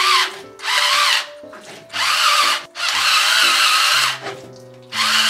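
A stainless-steel pepper mill grinding black pepper in repeated bursts of about a second each, with short pauses between them.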